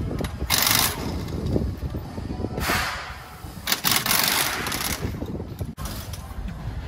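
Pneumatic impact wrench loosening a trailer wheel's lug nuts, running in three short bursts, the last the longest, over a low background rumble.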